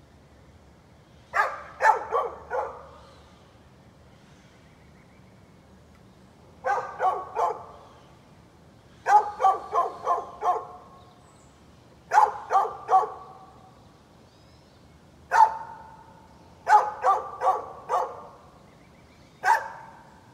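A dog barking in repeated bouts of one to five quick barks, the bouts a few seconds apart.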